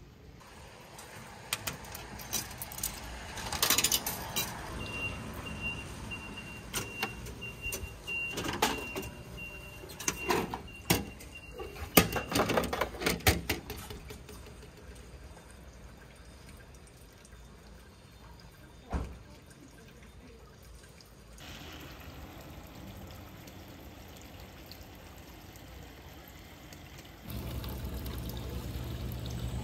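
Sticker vending machine being worked: a run of clicks and clunks with a steady high tone held for several seconds, then a louder clatter about twelve seconds in. Near the end, a steady rush of running water takes over.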